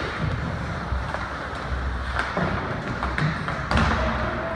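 Ice hockey play in a rink: a few sharp knocks and clacks of sticks and puck on the ice and boards, spaced about a second apart, over steady arena noise.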